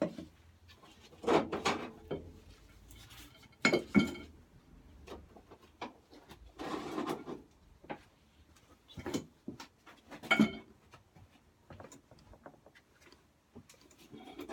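Hand work on an old lawn mower's metal parts: irregular knocks and clinks of parts being handled and set down, with short rubbing scrapes in between.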